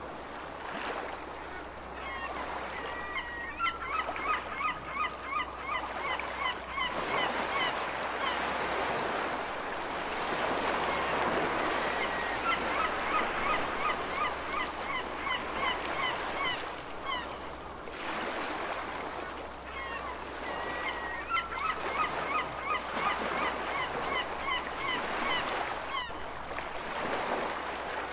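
Gulls calling in several bouts of short, rapid cries, about four a second, over ocean waves washing and surging in a steady, swelling hiss.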